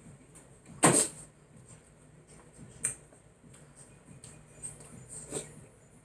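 Close-up eating sounds as a woman chews seafood-boil shrimp and mussels, with a few sharp mouth clicks and smacks, the loudest about a second in.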